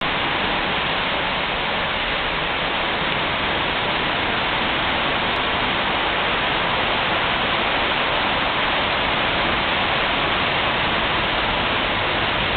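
Steady, even rushing noise of room air-conditioning airflow and equipment fans, unchanging throughout.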